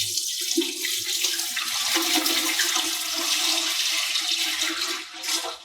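Isopropyl alcohol being poured into the FabWash resin-wash basin, a steady liquid rush that stops abruptly near the end.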